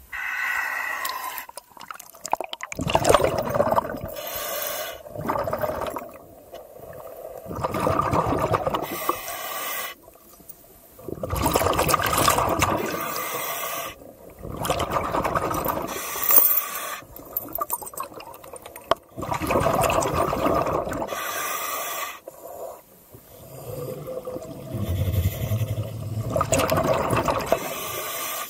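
Scuba diver breathing underwater through a regulator: a hissing inhale followed by a rush of exhaled bubbles, repeating every few seconds, about eight breaths in all.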